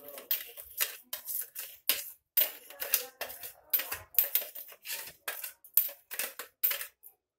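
Steel spoon scraping and clicking against a steel plate in quick, irregular strokes as salt is scooped off it.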